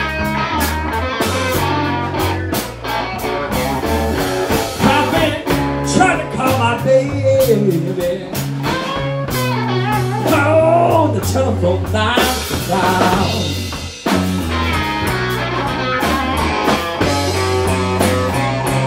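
Blues band playing a slow blues: an electric lead guitar plays bending fills over bass and drums.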